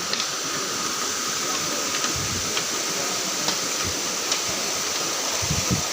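Steady rush of a waterfall, with a few light clicks and some short low thumps over it.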